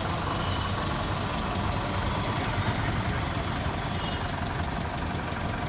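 Bus engine idling steadily, a low even rumble.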